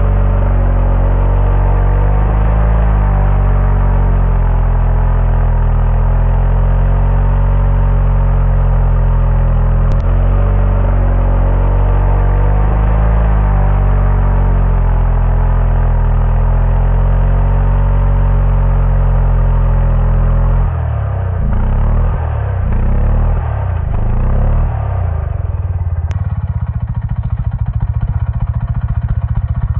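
Stihl 500i chainsaw with a square-ground semi-skip chain cutting through a stump at full throttle, its note held steady under load with small dips. About 21 seconds in the note starts to waver, and a few seconds before the end it drops to a rattling idle.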